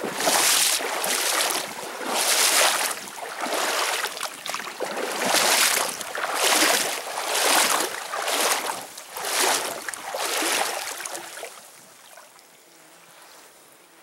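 A canoe being paddled along a shallow creek: water swishes in loud surges about once a second. The strokes fade out and leave a faint hush for the last two seconds or so.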